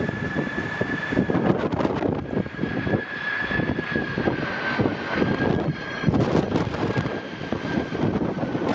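Boeing 747 freighter's jet engines whining with a steady high tone that sinks slightly, under strong gusty wind buffeting the microphone.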